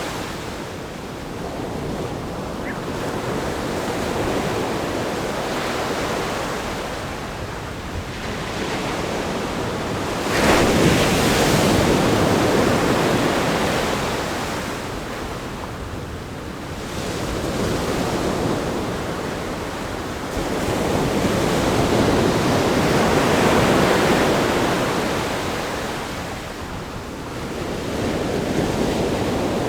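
Ocean surf breaking against a rock groin on a sandy beach, a continuous roar that swells and ebbs with each wave set. A sudden, louder crash comes about ten seconds in, and wind buffets the microphone lightly.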